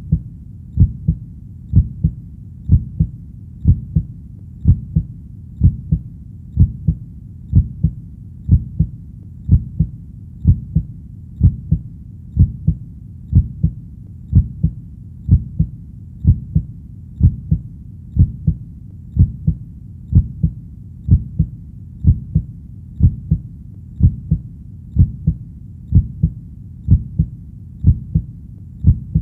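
Heartbeat sound: a steady, deep lub-dub double thump about once a second, at a calm resting pace, over a faint steady hiss.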